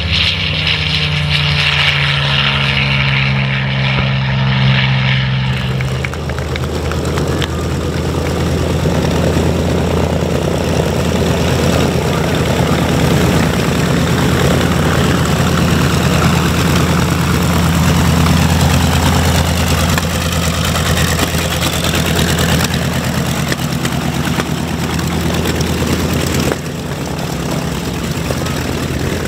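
The twin Wright R-2600 radial engines of a North American B-25J Mitchell running at low power as the bomber taxis, giving a steady low drone with propeller noise. The first five seconds or so hold a different sound, and the level dips slightly near the end.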